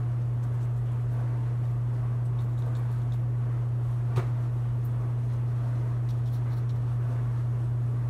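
A steady low hum, with faint light dabbing and scratching of a flat paintbrush on watercolour paper and a single small click about four seconds in.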